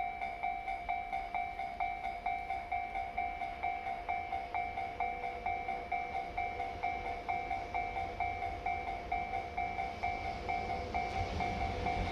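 Japanese railway level-crossing warning bell ringing in a steady two-tone pulse, about three rings a second, signalling that a train is approaching. A low rumble from the approaching freight train builds underneath over the last couple of seconds.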